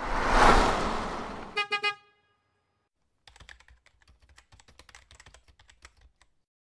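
Intro sound effects: a whoosh that swells and fades, then two short car-horn toots about two seconds in, followed by a few seconds of faint, rapid keyboard-typing clicks.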